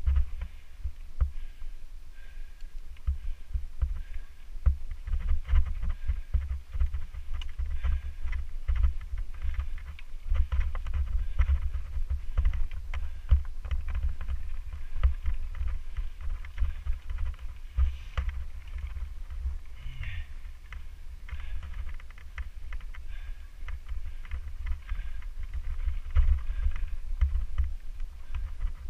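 Mountain bike ridden over a dirt trail: a steady low rumble of wind and ground on the bike-mounted camera, with constant irregular clicks and rattles from the bike over the bumps.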